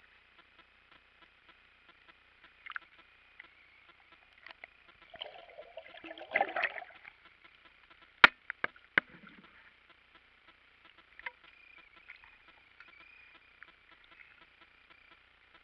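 Water splashing for a couple of seconds, about five to seven seconds in, as a hooked redfish thrashes at the surface beside the boat. Two sharp knocks follow about a second later, under a second apart, with a faint steady high hum throughout.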